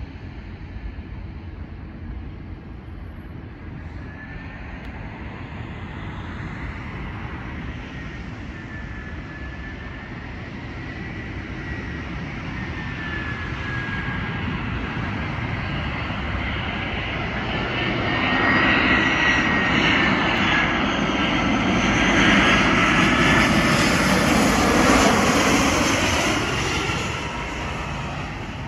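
Airbus A318 jet airliner passing. Its engine noise builds slowly, is loudest for about eight seconds, then fades, with a high whine that wavers in pitch.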